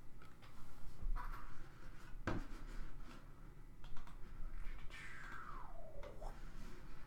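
Trading cards being handled and sorted on a table: light scratching and scattered clicks, one sharper click a couple of seconds in, and a brief squeak that falls in pitch about five seconds in.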